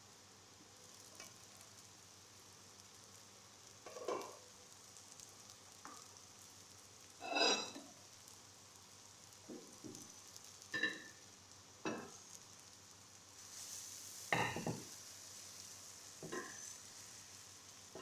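Tomato omelette frying in a pan with a faint steady sizzle, and a spatula scraping against the pan in about seven short strokes, the loudest about seven seconds in and again near the end.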